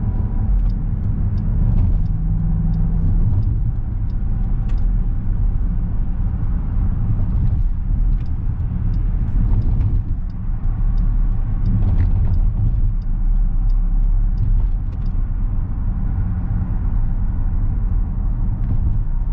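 2021 Dodge Durango R/T's V8 engine and tyre noise at a steady cruise, heard from inside the cabin: a low, even rumble with only small rises and dips in level.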